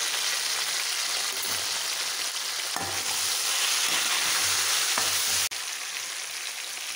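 Small whole slit brinjals frying in sesame oil in a kadai, a steady high sizzle as they sauté, with a few light knocks and scrapes of a metal spatula stirring them. The sizzle cuts out for an instant about five seconds in and carries on a little quieter.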